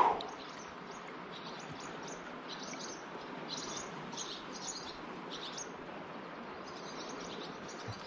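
Small birds giving a run of short, high chirps, several a second, over the steady rush of flowing river water. A brief louder sound comes right at the start.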